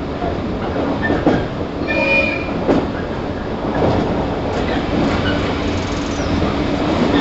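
Running sound inside KuMoHa 115-1005, a 115 series 1000 subseries electric train under way: a steady rumble with a low hum, a couple of rail-joint clacks, and a brief high wheel squeal about two seconds in.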